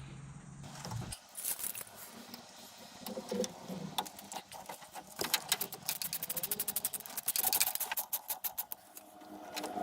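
Rapid mechanical clicking, scattered at first and then a fast, dense run of about eight or more clicks a second in the second half. A low steady hum stops about a second in.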